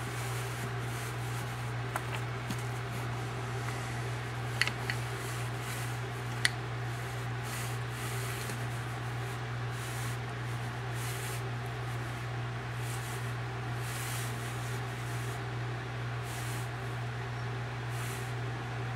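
Steady low hum of room noise, with a few brief faint clicks about five and six and a half seconds in.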